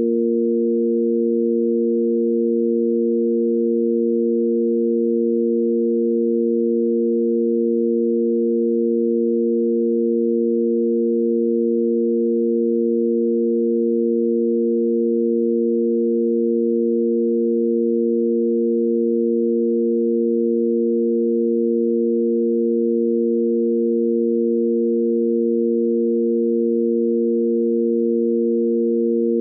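Sine-wave tanpura drone in A#: three pure sine tones held together without a break, the root A#, its fifth and the octave above, steady in pitch and level.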